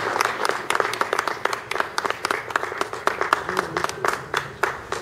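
Audience applauding, many hands clapping together, thinning to scattered single claps and dying away near the end.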